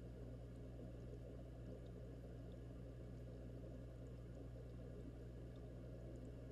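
Faint, steady low rumble and hum of an aquarium heard from underwater, mostly the bubbling of the air-stone bubble columns, muffled through a GoPro's waterproof housing, with a few tiny ticks.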